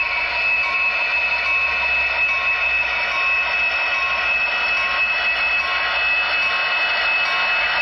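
Model train rolling past close by: a steady hissing whine, with a short bell-like ding repeating about one and a half times a second, typical of a sound-equipped model diesel locomotive ringing its bell.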